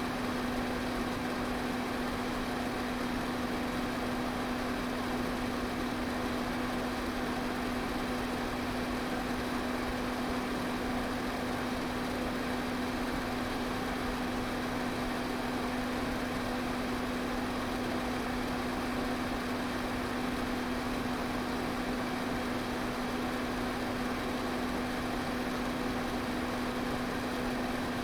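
Electric pedestal fan running steadily: an even rush of air over a constant low motor hum.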